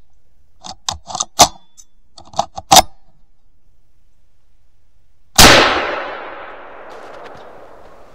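Two short runs of sharp clicks, then about five seconds in a single loud rifle shot at a squirrel, whose report dies away over about two seconds.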